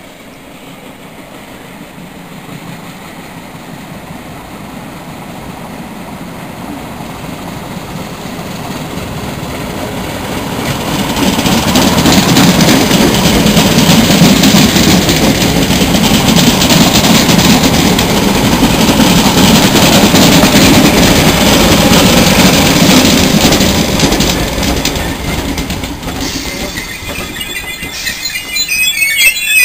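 Electric multiple-unit passenger train approaching out of a tunnel and running fast past the platform: a rumble that builds for about twelve seconds, holds loud while the coaches pass, then eases. High-pitched wheel squeals near the end.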